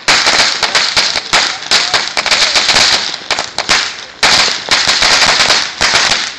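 A long string of firecrackers going off in a rapid, continuous run of cracks, easing briefly a little after three seconds in and then picking up again.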